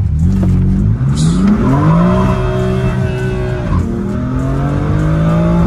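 BMW M4's S55 3.0-litre twin-turbo inline-six accelerating hard from a standstill in a 0 to 100 km/h run. The engine note climbs steeply, holds flat at the top for over a second, drops sharply at an upshift, then climbs again. The driver later says he shifted late.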